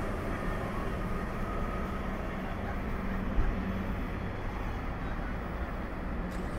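Steady low rumble of a departing passenger train pulled by a Siemens Charger diesel-electric locomotive, fading into the distance and blending with road traffic. One brief thump comes about three and a half seconds in.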